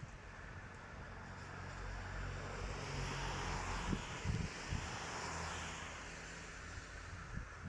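A vehicle passing: a rush of noise that swells to a peak about four seconds in and fades again, with a few brief knocks at the peak and a low hum underneath.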